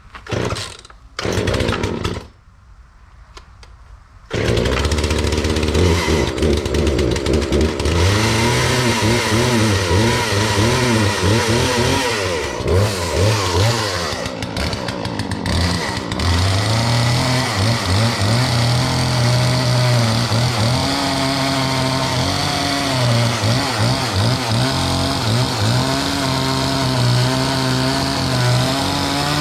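Poulan two-stroke chainsaw being started: two short bursts, then the engine catches about four seconds in. It runs with its speed swinging up and down, then settles from about halfway into a lower, unsteady idle that rises and falls.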